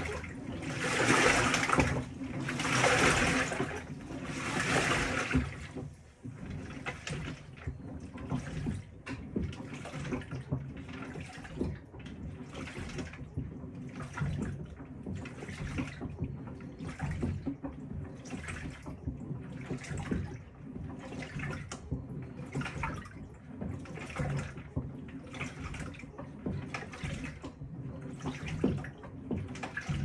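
Panasonic top-loading washing machine agitating a load in water, the pulsator driving the wash water and clothes round in rhythmic sloshing surges. The surges are louder and about two seconds apart for the first five seconds or so, then quieter and quicker, about one a second.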